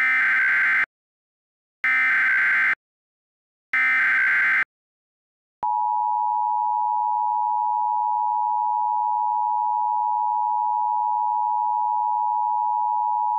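Emergency Alert System data header: three identical bursts of warbling digital tones about two seconds apart. These are followed by the two-tone EAS attention signal, held steady for about eight seconds. Together they mark the start of a new alert.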